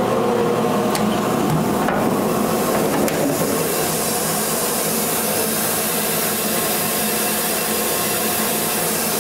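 Steady hum and hiss of a running fiber laser cutting machine and its shop equipment, with a few light clicks of handling in the first three seconds. The hiss grows brighter a little after three seconds in.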